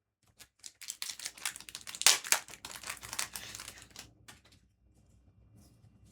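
Foil booster pack wrapper being torn open and crinkled, loudest about two seconds in. After that, only a few faint ticks of handling.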